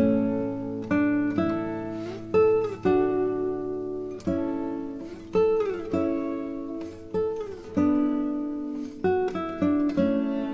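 Background music: an acoustic guitar picking a slow melody of single ringing notes, with a few notes sliding in pitch.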